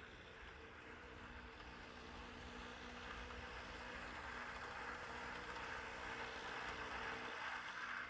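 A vehicle engine running steadily with a faint hum, growing slowly louder as it approaches.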